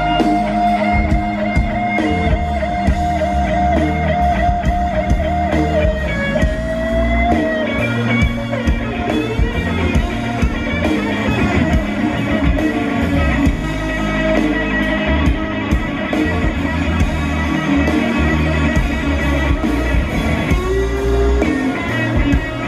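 Live blues-rock band playing loudly through a large PA: an electric guitar lead over bass and drums. A held, wavering lead note for the first few seconds gives way to busier guitar phrases.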